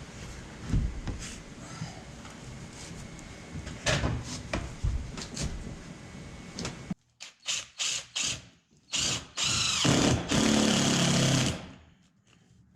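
A few knocks and bumps from handling panels, then a power drill run in several short trigger bursts and two longer runs of a couple of seconds each, driving in fasteners to hold up the sleeper headliner.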